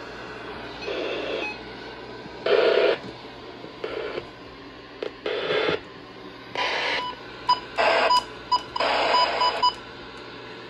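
A weather radio receiver playing a malfunctioning NOAA Weather Radio transmitter's garbled output: about seven short, irregular bursts of static-like noise, some carrying steady tones. In the second half a rapid run of beeps sounds through them.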